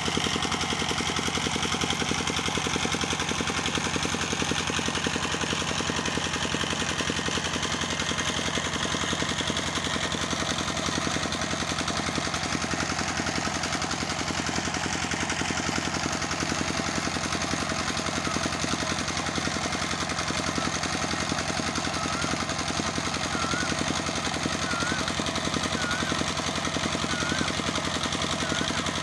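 An engine running steadily with a fast, even knocking beat. In the second half a bird chirps over it, a short call every second or so.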